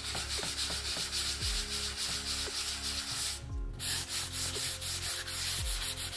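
Hand sanding of dried wood filler on a bare wooden board with coarse 100–120 grit sandpaper on a small block: quick, scratchy back-and-forth strokes, with one short break a little past halfway.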